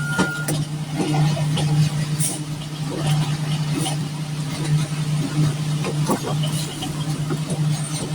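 Concrete mixer truck's diesel engine running steadily during the pour, with one reversing beep right at the start and scattered knocks and scrapes.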